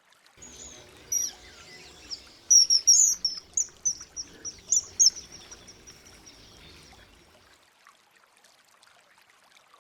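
Common kingfisher calling: a string of short, shrill, high-pitched whistled notes, most of them packed into the middle few seconds, over faint running water.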